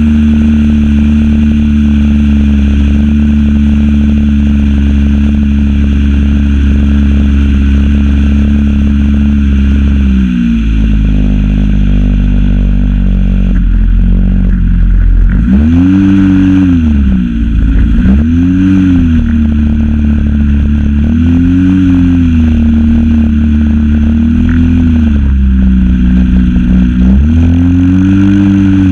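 Zenoah ZP 20 two-stroke petrol engine of an RC model plane, heard close from a camera on the airframe: running steadily, then throttled back about ten seconds in. From about fifteen seconds its speed swells up and back down five times, about every three seconds.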